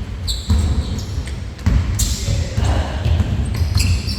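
Basketball bouncing on a hardwood gym floor during a game: several sharp thuds at uneven intervals, mixed with short high sneaker squeaks on the court.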